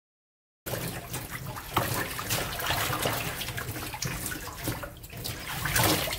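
Tap water pouring into a stainless steel bowl in a sink while hands swish and rinse a bunch of minari (water dropwort) stems, with lots of splashing. It starts suddenly just under a second in.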